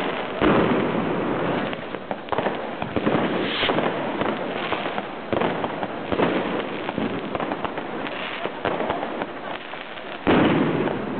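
Fireworks and firecrackers going off close by in quick, overlapping succession, a dense run of bangs and cracks. There are loud blasts about half a second in and again near the end.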